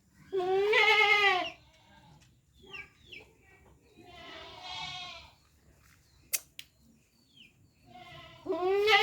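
Goat bleating: a loud call about a second long near the start, a quieter call in the middle, and another loud call beginning near the end. A single sharp click comes between the second and third calls.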